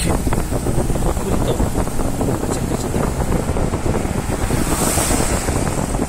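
Wind buffeting the microphone from a moving car: a loud, steady rush of air with constant crackling gusts, which cuts in sharply at the start over the car's engine hum.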